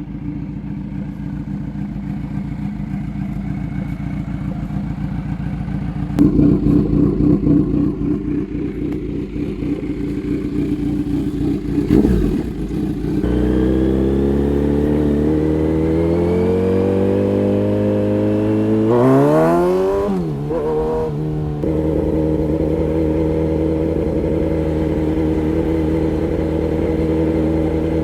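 Kawasaki Z900's inline-four engine running through an aftermarket DTMOTO exhaust while ridden. It runs steadily at first and grows louder and rougher about six seconds in. From about thirteen seconds it climbs steadily in pitch as the bike accelerates, peaks and drops sharply around nineteen seconds, then settles into a steady cruise.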